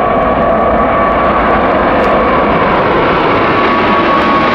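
Boeing 777-300ER's twin GE90 turbofans at takeoff thrust as the jet lifts off and climbs: a loud, steady jet roar with a high fan whine running through it. The hiss grows brighter as the aircraft climbs closer.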